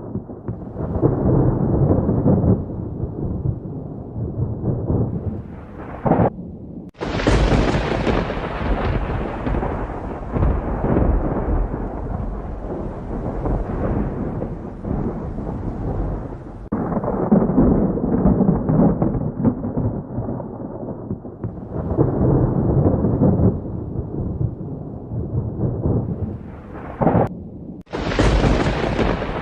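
Thunderstorm: thunder rumbling again and again over steady rain, swelling several times. The sound drops out briefly twice, about seven seconds in and near the end.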